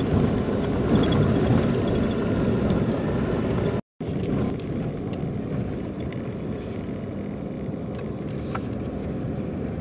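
Steady rumble of a vehicle driving a dirt road, heard from inside the cab: engine and tyre noise. About four seconds in it cuts out for a moment, then carries on a little quieter, with a few light ticks.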